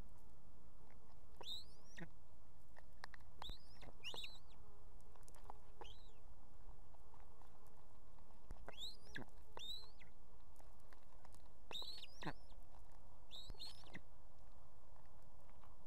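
Ospreys calling at the nest during feeding of the chicks: short, sharp high chirps in small groups every second or two, over a steady faint hiss.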